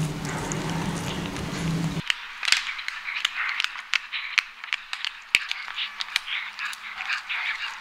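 Abyssinian cat eating a treat up close: wet, irregular lip-smacking and chewing clicks and crackles. For about the first two seconds a low steady rumble sits under them.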